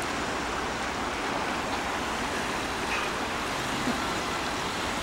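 Steady rush of moving water in a dolphin pool: an even hiss with no separate splashes standing out.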